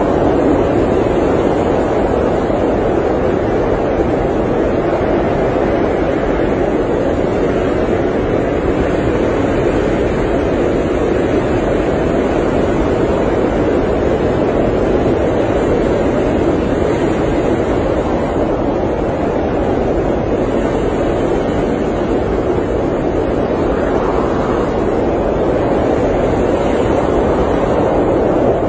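Steady rushing noise of blizzard wind, an even hiss with no gusts, breaks or distinct events, its weight in the low-middle range.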